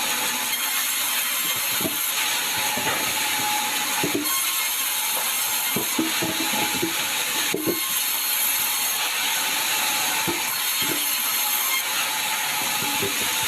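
Sawmill saw running steadily through a sengon log, a continuous hiss-like cutting noise, with scattered knocks and clatter from the machinery and wood.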